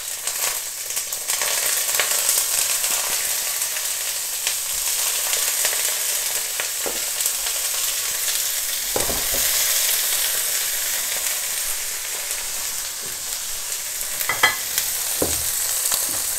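Whole langoustines sizzling in hot vegetable oil in a wok as they are laid in one after another. The sizzle grows louder in the first couple of seconds, then holds steady. There are a few short knocks in the second half.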